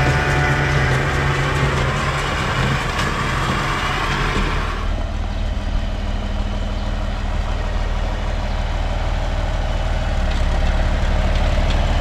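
Tractor engine running as it pulls a square baler through the field. About five seconds in the sound changes abruptly to a John Deere tractor's engine idling steadily close by.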